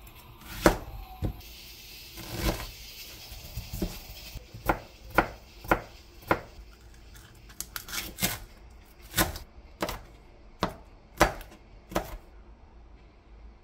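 Kitchen knife chopping on a cutting board while preparing square gimbap: about fifteen sharp knocks, irregularly spaced half a second to a second apart. A stretch of hissy rustling comes in the first few seconds.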